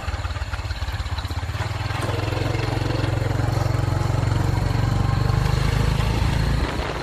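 Motorbike engine running, growing louder over the first few seconds, holding steady, then easing off near the end.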